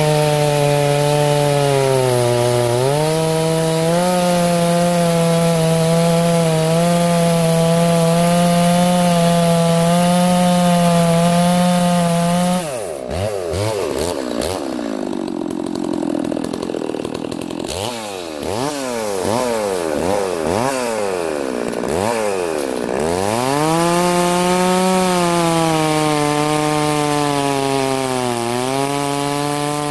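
Farmertec Holzfforma G660 chainsaw on a 36-inch bar running at full throttle in the cut through a big dry hardwood log, bogging down briefly about two seconds in. A little under halfway through the steady note breaks off and the engine is revved up and down again and again for about ten seconds. Near the last quarter it settles back into steady full-throttle cutting.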